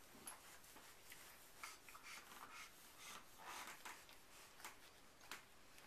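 Faint rustling and small clicks from Airedale puppies nursing and shifting about on cloth bedding.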